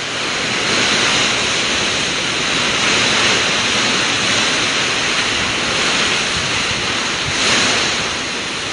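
Strong typhoon wind gusting with driving rain, a loud steady rush that eases briefly near the end.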